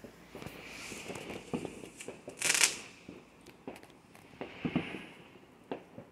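Fireworks and firecrackers going off as scattered sharp pops and bangs, with one louder burst about half a second long a little past two seconds in.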